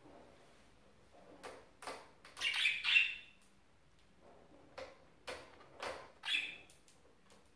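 Budgerigars chirping and chattering in short calls, with a louder burst of squawky calls about two and a half seconds in and another about six seconds in.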